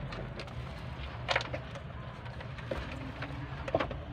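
Two short clicks, one about a second in and one near the end, from handling the truck's dashboard wiring connectors, over a low steady background hum.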